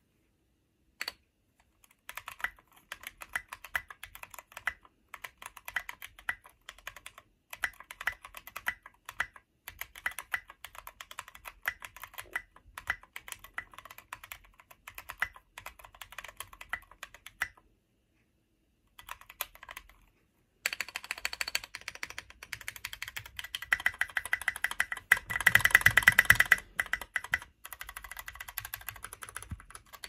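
Minivan 40% mechanical keyboard being typed on: a steady stream of key clacks, a brief pause, then faster, denser typing that is loudest a few seconds before the end.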